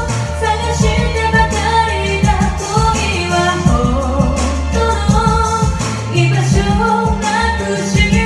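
A woman singing a Japanese pop ballad into a handheld microphone over a backing track with a steady bass line and beat.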